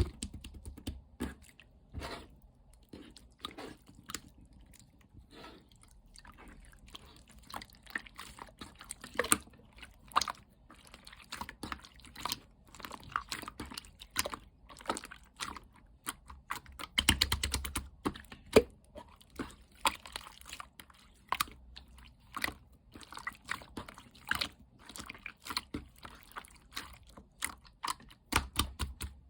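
Hands squishing and poking frog-egg slime, making a continuous run of wet, sticky crackles and small pops, with a denser, louder squelch about 17 seconds in.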